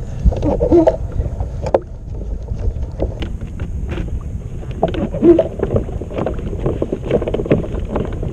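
Water slapping and splashing against a plastic fishing kayak's hull, with wind buffeting the microphone and scattered sharp clicks; louder splashes come about half a second in and again about five seconds in.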